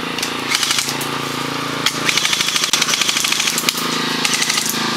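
Airsoft guns firing: scattered shots at first, then a fast run of shots lasting over a second in the middle, over a steady low hum.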